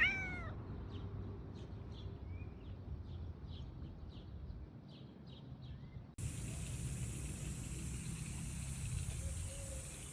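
A single short meow falling in pitch at the start, over a background of faint repeated chirps about twice a second. About six seconds in, a steady hiss takes over abruptly.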